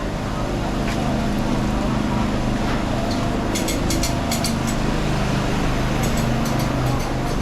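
Several generators running at once: a steady, loud engine drone with low humming tones. Short runs of sharp clicks come about three and a half seconds in and again near the end.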